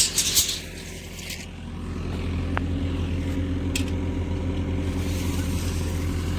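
A heavy concrete truck's diesel engine running steadily, getting a little louder about two seconds in. A brief scraping rattle sounds in the first second or so.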